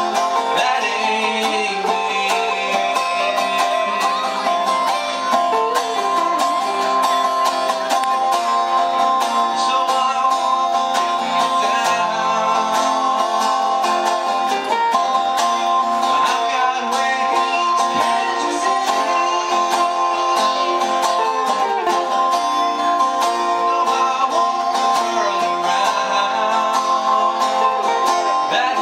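Live band playing an instrumental passage led by guitar, with rapid picked notes over sustained chords.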